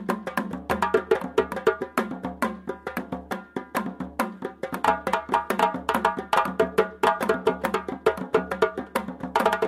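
Percussion-led music: a fast, steady run of sharp wooden clicks and knocks over sustained pitched tones.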